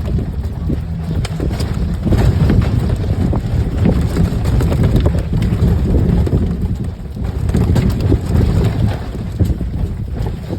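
Lifted golf cart driving over rough off-road ground: a steady low rumble with frequent knocks and rattles, and wind buffeting the microphone.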